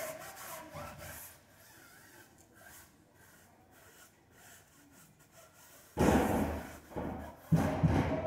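Cloth wiping homemade tyre shine onto a car tyre's rubber sidewall: faint rubbing strokes, then two louder bouts of scrubbing near the end.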